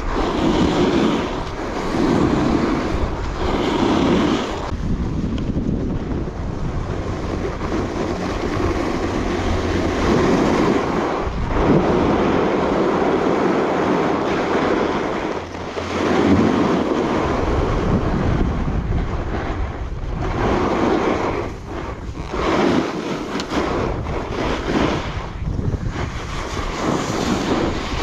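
Wind rushing over a chest-mounted action camera's microphone, mixed with the scrape and hiss of an alpine carving snowboard's edge cutting through groomed snow. It surges and eases every few seconds as the turns link.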